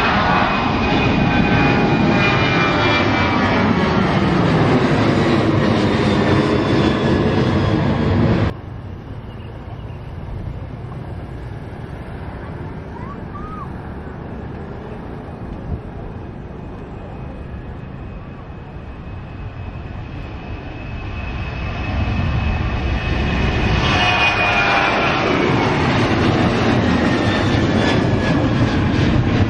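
Boeing 737 jetliners' CFM56 turbofans at takeoff power. The first jet passes close overhead while climbing, loud, with a whine sliding down in pitch, and cuts off suddenly about a third of the way in. After a stretch of lower, distant engine noise, a Boeing 737-900ER's engines build up, and it climbs out overhead with its whine also falling in pitch.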